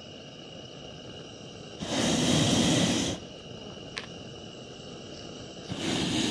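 Hot air balloon's propane burner firing in two blasts, each a steady roar that switches on and off sharply. The first lasts about a second and a half, starting about two seconds in, and the second starts near the end. There is a single click between them.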